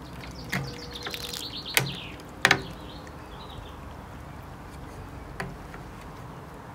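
Several sharp clicks and knocks as a plastic spring clamp and a garden hose are set on the rim of a glass aquarium, two of them loudest about two seconds in. A bird gives a quick run of high chirps about a second in.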